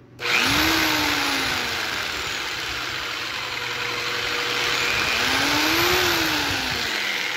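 Bauer orbital jigsaw running free with no cut, starting right at the beginning. Its motor pitch rises and falls twice as the variable-speed control is worked.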